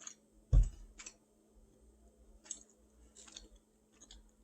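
Quiet eating sounds: scattered mouth clicks and chewing, with one low thump about half a second in.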